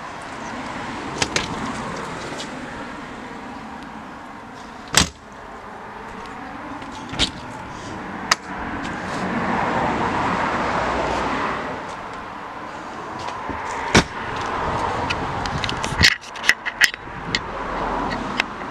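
The latch and door of a motorhome's exterior storage bay being worked: sharp single clicks and knocks, and a quick cluster of them near the end, over steady outdoor noise that swells in the middle.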